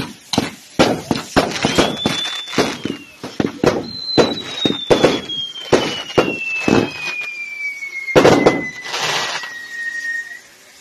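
Fireworks from a burning castillo, a Mexican fireworks tower, going off in rapid, irregular bangs and crackles, the loudest burst about eight seconds in. Over them come two high whistles: a short one about two seconds in, then a long one that slowly falls in pitch from about four seconds in and stops near the end.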